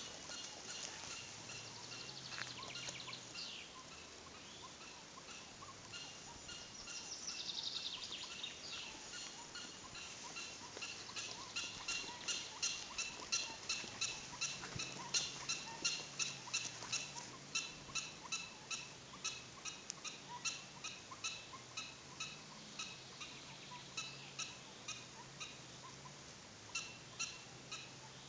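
Prairie dog barking: a few quick chirps at first, then from about ten seconds in a long, steady series of short, sharp barks at about two a second, the repeated call prairie dogs give when on the alert.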